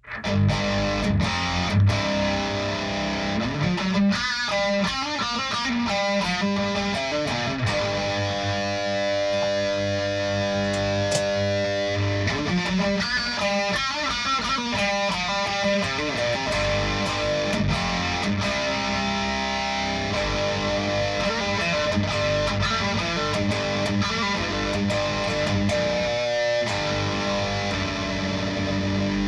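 Overdriven electric guitar played through a This Heavy Earth Black Mass preamp pedal into an Orange Pedal Baby 100 power amp, tone set with the pedal's internal trim pots. It plays a riff, mixing picked passages with chords left ringing for a few seconds at a time. The guitar starts suddenly out of silence.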